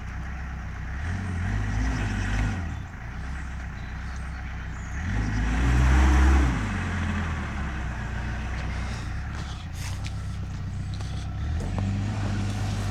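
LDV 400 Convoy van's engine revved hard in three surges through a noisy exhaust, the loudest about halfway through, dropping back to a lower note between them. The van is stuck, its wheels spinning in mud as it tries to dig its way out.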